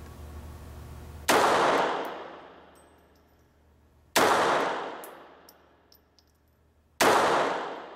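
Three single pistol shots from a Ruger Mark III semi-automatic, about three seconds apart, each followed by a long echo that dies away in the enclosed indoor range. Faint light ticks come in between the shots.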